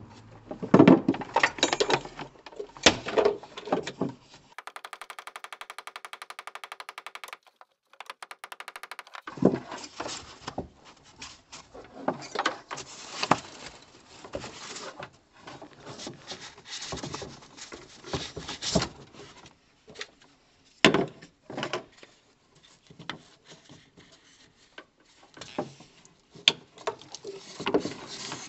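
Plumbing tools and pipe fittings being handled under a floor: irregular clicks, knocks and clatter, with a few seconds of rapid, even ticking about five seconds in.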